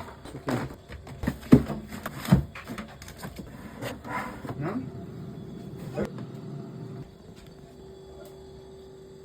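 Knocks and clatter of containers and groceries being set down and moved around in a refrigerator, loudest in the first few seconds. A steady hum runs through the second half.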